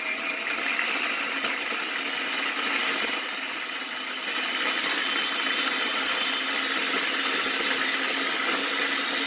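Small electric food processor running steadily, its blade chopping roasted vegetables into a thick purée.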